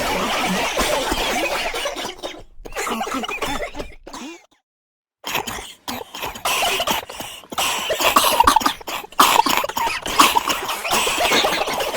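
People coughing over and over in short, sharp bursts, broken by about a second of dead silence some four seconds in.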